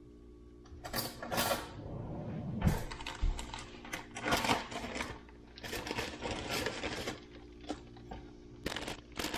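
A plastic bag of brown sugar crinkling as it is handled and poured, and a metal spoon scraping and clinking in a stainless steel saucepan as the sugar is stirred in. The rustles and clinks come in short, uneven bursts.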